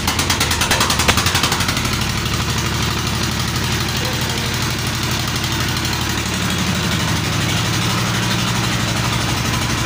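Single-cylinder Petter diesel engine running and belt-driving a generator that is producing electricity. Its firing is sharper and a little louder for the first second and a half, then settles into a steady run.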